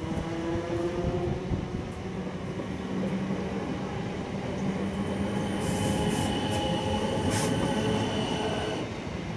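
South Western Railway Class 455 electric multiple unit running past close by: a steady rumble of wheels on rail with its traction motors whining in several steady tones, brief high-pitched squeals around six and seven and a half seconds in, and the whine stopping near the end as the train draws away.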